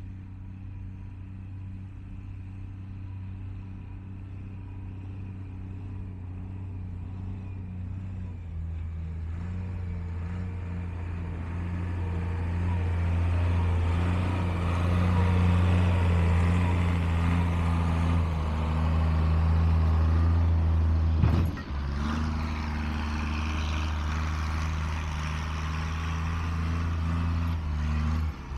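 1974 John Deere 544A wheel loader's engine running steadily, stepping up in speed about a third of the way in and growing louder, with two brief dips in the sound later on.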